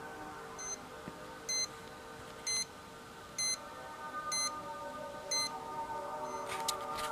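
Steady electronic tones of a Rife frequency recording, several pitches held together, with a short high beep about once a second. A few sharp clicks come near the end.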